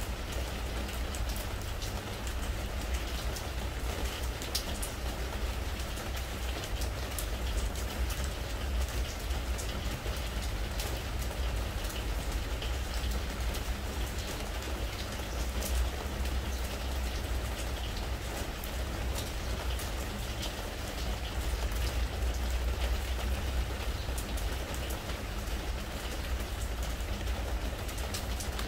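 Spring rain falling on a pressure-treated wooden deck: a steady patter with many separate drops ticking close by, over a low steady rumble.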